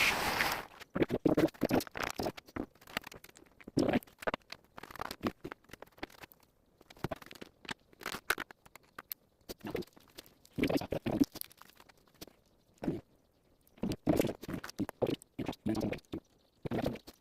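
Irregular clicks, knocks and scrapes of small hard objects being handled, in short bursts separated by pauses. A short noisy burst cuts off just after the start.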